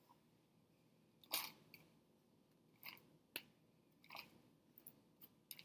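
Faint scraping, crunching rustles of potting soil as a small plastic plant pot is scooped through a plastic tub of soil, a few separate scoops with a sharp tick partway through.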